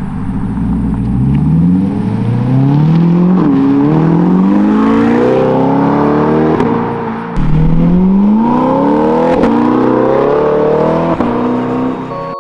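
Car engine accelerating hard through several gears: the pitch climbs steeply, drops at each upshift and climbs again.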